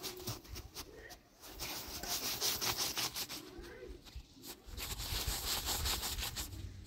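Rapid, rough scraping strokes in two runs of about two seconds each.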